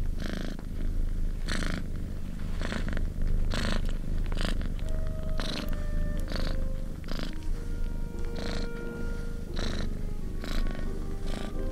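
Mother cat purring steadily as she nurses her kittens, with short high sounds about once a second over the purr. Soft background music with held notes comes in about halfway through.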